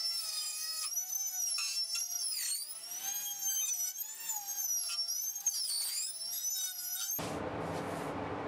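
Handheld router with a one-piece cutter running at high speed, its high whine wavering up and down in pitch as it cuts into a surfboard's foam core. About seven seconds in the whine cuts off and gives way to a steady hiss.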